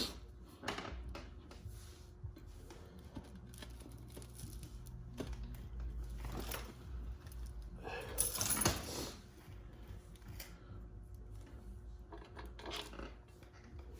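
Scattered handling noises, light clinks and scrapes, as bolts are fitted into a three-piece wheel after its lip is set onto the barrel, with a longer, louder scrape about eight seconds in.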